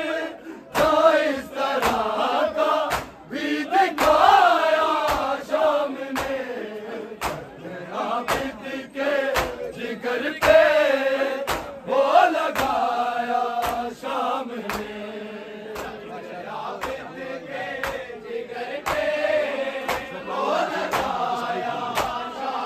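A group of men chanting an Urdu noha in unison, a lament for Imam Sajjad, kept in time by a steady beat of sharp slaps from hands striking chests (matam).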